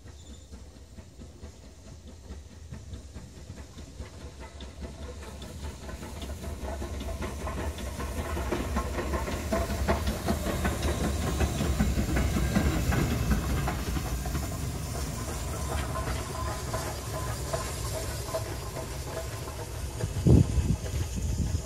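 Steam locomotive running light past at close range: hissing steam and exhaust with wheels clicking over the rail joints, growing louder as it approaches and passes, then easing off slightly as it draws away. A single sharp thump about twenty seconds in is the loudest moment.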